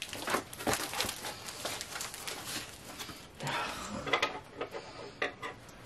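Clear packing tape crackling as it is peeled and ripped off a cardboard box, with the cardboard rustling and flexing. There is a longer rip about three and a half seconds in.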